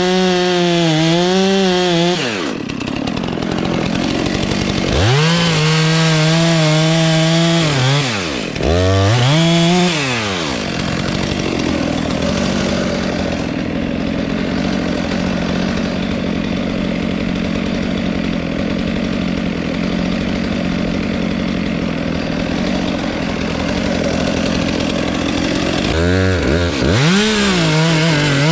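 Two-stroke chainsaw revved up and down several times, then held at full throttle for a long cut of about fifteen seconds as it saws into the dead pine, then revved again near the end.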